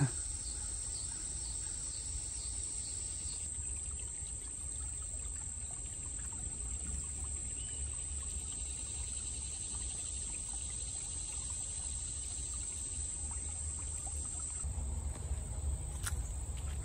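Steady high-pitched chorus of crickets or similar insects, with the faint trickle of a shallow rocky creek beneath it. About fifteen seconds in the sound shifts and low bumping grows louder.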